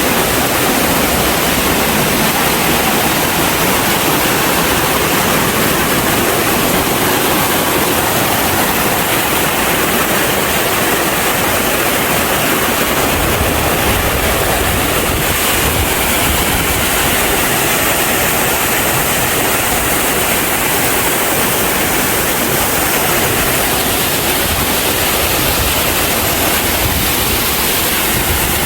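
Loud, steady rush of water from a waterfall on a mountain stream.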